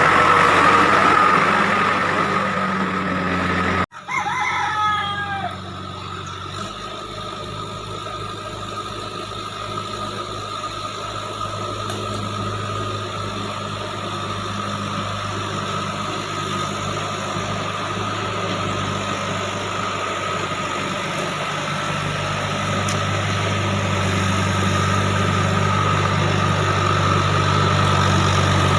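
JCB 3DX backhoe loader's diesel engine running steadily. The sound breaks off abruptly for an instant about four seconds in. Right after, a rooster crows briefly over the engine, and the engine grows louder near the end.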